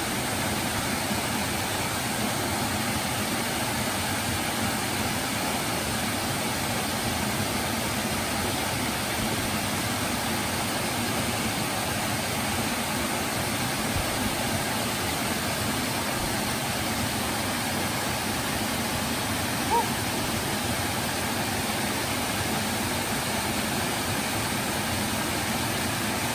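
Steady rushing of Hemlock Falls, a small cascading waterfall pouring into its pool, even and unbroken throughout. One short, higher blip stands out briefly about three-quarters of the way in.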